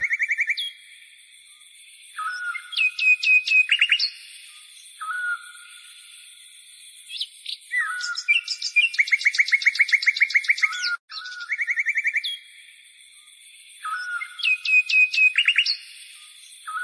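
Bird song: several phrases of fast, high chirps and short trills, with brief pauses between the phrases.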